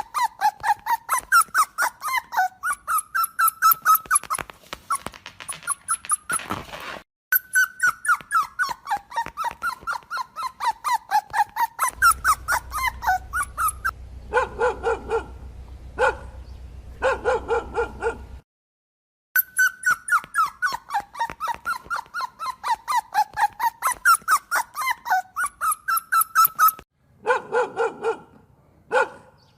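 Dogs yelping and barking in a series of spliced clips: long runs of rapid high-pitched yips, several a second and wavering in pitch, broken by short bouts of deeper, spaced barks.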